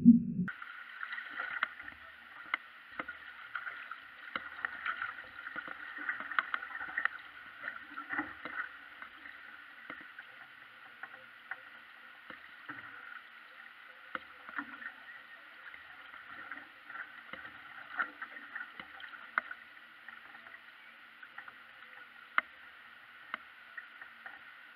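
Water sounds of paddling: paddle blades dipping and water washing along a canoe hull, with frequent small, irregular splashes and drips. The sound starts about half a second in.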